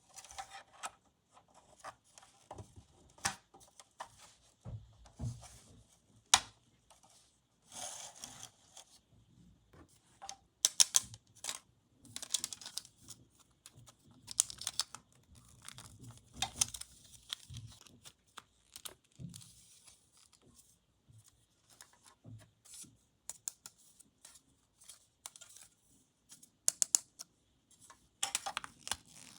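Toy packaging being unwrapped by hand: tearing and crinkling, with irregular sharp clicks and taps of handled pieces, the sharpest clicks about a third of the way in.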